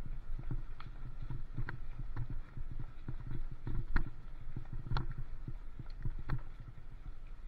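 Irregular knocks and rattles from a bicycle-mounted camera as the bike rolls over a rough, wet lane, over a steady low rumble of tyres on the road.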